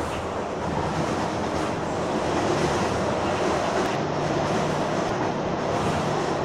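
Metrorail train running along the track: steady rattling and running noise with a low hum underneath, growing a little louder past the middle.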